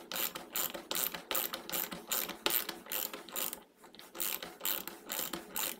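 PROMAKER 1/2-inch drive ratchet clicking in rapid, regular strokes as it drives a hex-head screw into wood, with a brief pause a little over halfway through.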